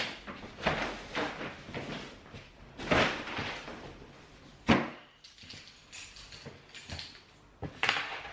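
Paper shopping bags rustling and knocking as they are carried and handled, with footsteps and a sharp thud about four and a half seconds in.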